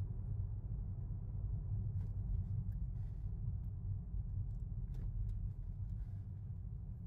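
Low, steady rumble of a car's engine and tyres heard from inside the cabin while driving slowly, with a few faint ticks.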